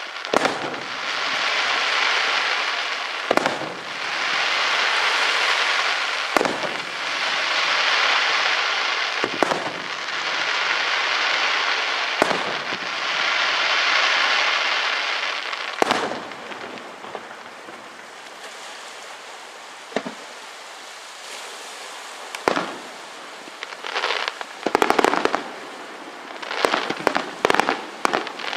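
Aerial fireworks in a display: a shell bursts about every three seconds, each followed by a long hissing crackle. About halfway through it goes quieter, and near the end come rapid volleys of sharp bangs.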